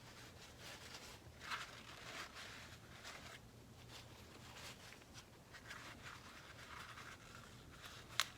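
Faint scraping and handling of metal parts as the oil-filled hydraulic pistons are worked out of an overdrive housing, with a sharp click near the end.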